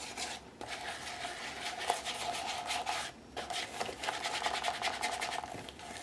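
A StazOn ink pad rubbed in quick scuffing strokes over a collaged paper book cover to pick up its raised texture. There are two brief pauses, about half a second in and about three seconds in.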